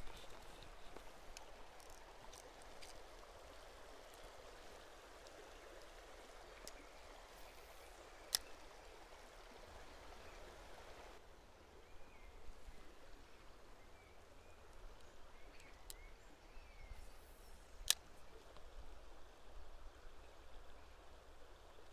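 Shallow river running over stones, a faint steady rush of water. Two sharp clicks stand out, one about eight seconds in and one near eighteen seconds.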